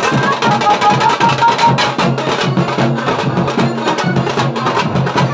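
Tasa band drumming: large barrel drums and a drum struck with thin sticks beaten together in a loud, dense, driving rhythm. A high melody line sounds over the drums for about the first second.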